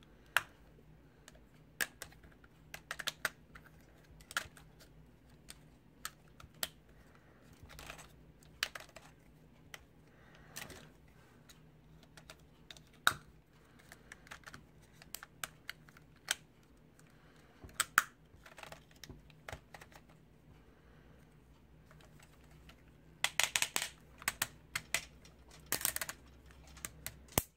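Plastic parts of a Playmates Legendary Black Lion action figure clicking and knocking as its limbs and panels are moved by hand: scattered irregular clicks, with a quicker run of them near the end.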